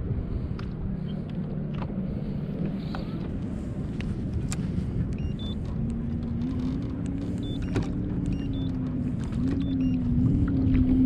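Boat motor running: a low steady hum, with a whining tone that steps up and down in pitch over the second half, loudest near the end.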